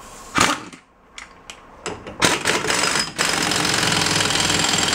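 Air wrench running down the castle nut on a VW bus rear axle, a loud fast rattle starting about two seconds in, with a short break near three seconds, then running steadily. A few clinks of the nut and socket come before it.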